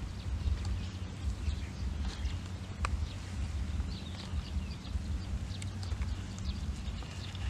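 Outdoor field ambience: a steady low wind rumble on the microphone, with scattered short bird chirps and one sharp click about three seconds in.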